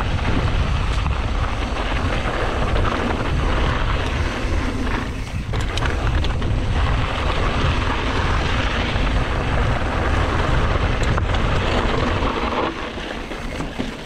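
Mountain bike rolling down a dry dirt singletrack: tyres crunching over loose dirt and gravel, with wind rumbling heavily on the microphone and a few sharp clicks and rattles from the bike.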